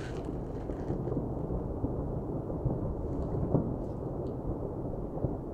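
Sakurajima volcano's explosive eruption rumbling: a continuous low, rough rumble as the ash column rolls up. A few sharper cracks break through it, the loudest about three and a half seconds in.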